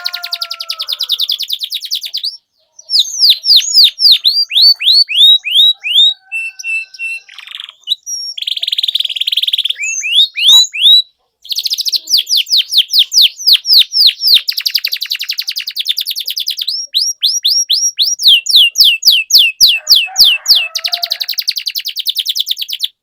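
Domestic canary singing a long, loud song of fast trills made of repeated down-slurred notes, changing trill type every second or two. It breaks off briefly about two and a half seconds in and again about eleven seconds in.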